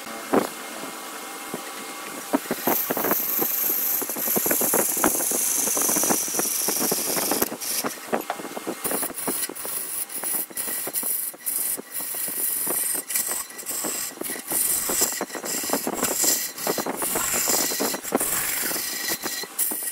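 Wood lathe running while a turning tool cuts the spinning wood: a high hissing scrape of the cut with many irregular knocks and clatters.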